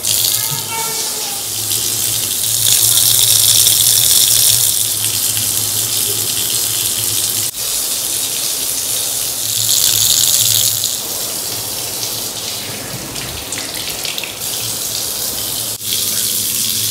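Water running steadily, with a low hum beneath it; it breaks off for an instant about halfway through and again near the end.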